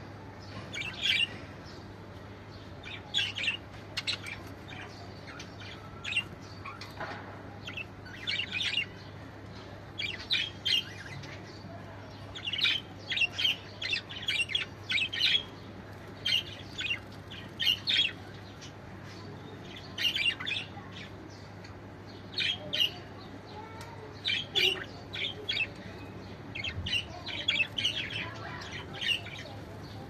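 Male English exhibition budgerigars chirping: short, sharp chirps in quick clusters every second or two, over a low steady hum.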